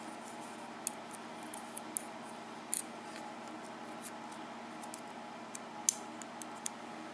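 Small, sharp metallic clicks and light scrapes, scattered and irregular, as the top pin-housing piece of a Schlage KIK lock cylinder is worked loose with a tool. Two louder clicks come about three and six seconds in, over a steady low hum.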